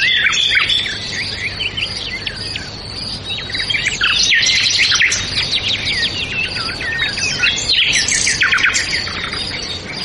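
A chorus of many small birds chirping, a dense run of short, quick calls that is busiest about midway and again near the end.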